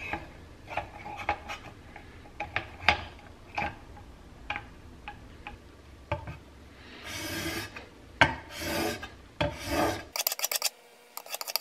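Steel plane iron in a roller honing guide being rubbed on 1500-grit sandpaper over glass. First come scattered short scrapes and taps, then three longer rasping strokes about seven to ten seconds in. A run of quick light clicks follows near the end.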